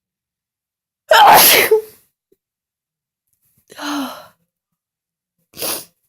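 A person's loud sneeze about a second in, followed by two shorter, quieter bursts of breath, the second near the end.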